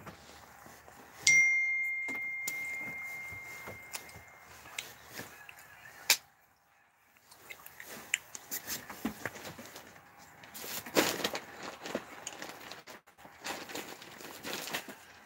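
A single clear ding about a second in: one high tone that rings out and fades over about three seconds. After it come scattered knocks and rustling from people moving about.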